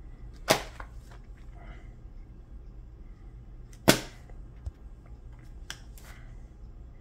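Bagged-and-boarded comic books being handled and laid on a table: two sharp slaps of the plastic-sleeved boards, about half a second in and again about three and a half seconds later, then two lighter clicks near the end.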